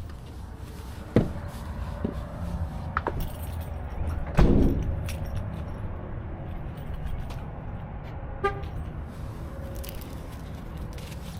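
Scattered clicks, clinks and knocks of tools and parts being handled over a steady low hum, with one heavier thump about four and a half seconds in.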